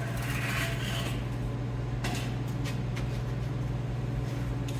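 A steady low hum throughout, with a brief rustling scrape near the start and a few light clicks about two seconds in.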